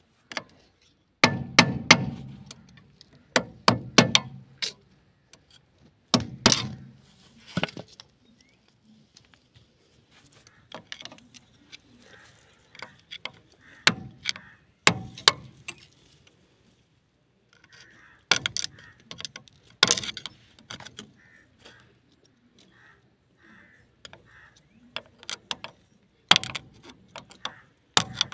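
Steel bar knocking against the tapered roller bearing on a John Deere tractor's front wheel spindle to drive the bearing off: clusters of sharp metallic knocks and clinks, a few strokes at a time, with pauses between.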